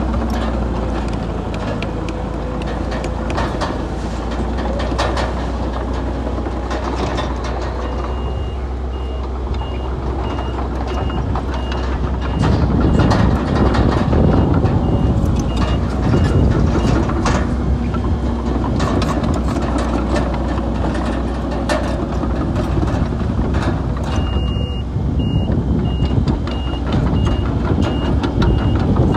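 Heavy diesel earthmoving machines at work, a bulldozer and dump trucks: a steady engine hum with knocks and rattles, growing louder for a few seconds near the middle. A reversing alarm beeps steadily, about two beeps a second, from about a quarter of the way in to past the middle, and again near the end.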